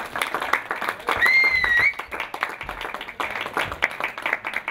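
Audience applauding steadily, with a brief high, slightly rising whistle-like tone about a second in.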